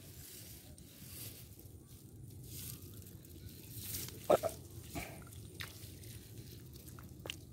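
Faint squelching and small splashes as a hand works in a muddy, water-filled hole, with scattered soft clicks and one louder wet squelch about four seconds in.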